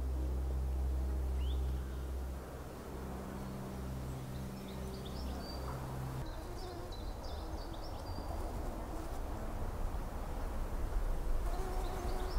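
Outdoor dawn ambience: scattered short bird chirps over a steady low hum that cuts off about halfway through, leaving a rougher low rumble.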